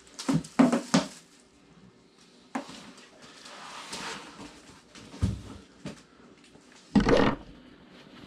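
A person handling belongings: a few sharp knocks as a plastic bag and its contents are set down on a table, then cloth and bag rustling as a backpack comes off, a single knock a little after five seconds, and a heavier thump at about seven seconds, the loudest sound.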